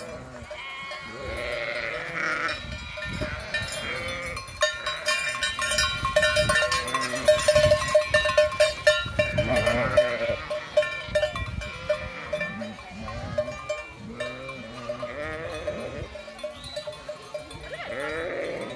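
Bells on a passing flock of sheep and goats clanking irregularly, loudest in the middle, with sheep bleating now and then.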